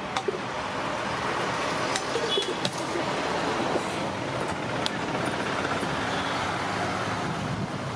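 Steady roadside traffic noise, with a few sharp clicks.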